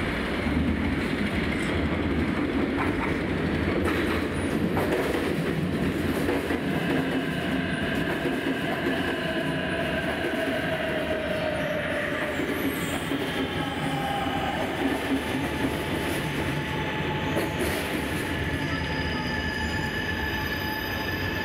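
Shanghai Metro Line 2 electric train arriving and slowing into the station: the wheels rumble on the rails with a few sharp clicks over rail joints early on, and a gently falling electric whine sets in as it slows. Near the end the wheels squeal, with steady high tones.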